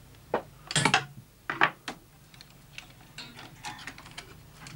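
Clacks and rattles of metal and plastic parts as the top-loading cassette housing of a JVC HR3330 VHS recorder is worked loose and lifted out of the deck: a few sharp clacks in the first two seconds, then lighter clicks and rattling.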